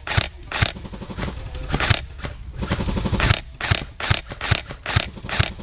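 Airsoft rifles firing: about a dozen sharp single shots, roughly two a second, with a quick rapid-fire run around three seconds in.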